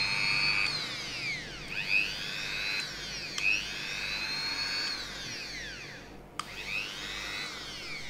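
Handheld electric rotary tool running with a small grinding stone fitted, a high-pitched whine whose pitch rises and falls. It cuts out briefly just past six seconds, then resumes and fades near the end.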